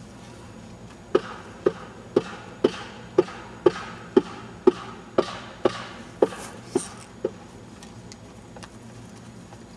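Ratchet strap being cranked tight: a steady run of about a dozen sharp metallic clicks, about two a second, each with a brief ring, stopping about seven seconds in.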